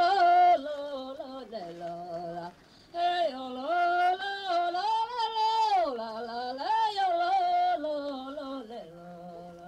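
A woman singing solo, holding long notes and gliding slowly between them, with a short break about two and a half seconds in.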